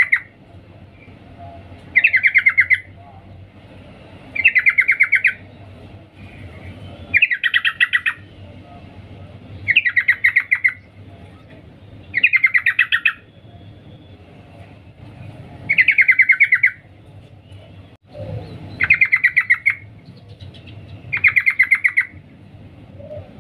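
Yellow-vented bulbul (trucukan) calling: a short, fast chattering phrase of rapid notes repeated at even intervals, about every two and a half seconds, eight times. This is the female's call, used to stir males into singing.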